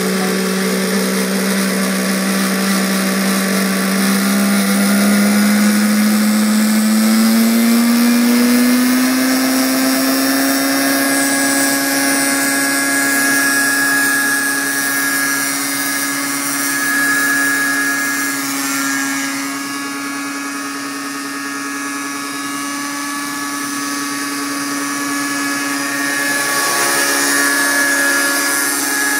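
Radio-controlled MD 500 scale model helicopter running with a steady mechanical whine. Its pitch climbs smoothly over several seconds as the rotor spools up, then holds steady while it hovers and flies.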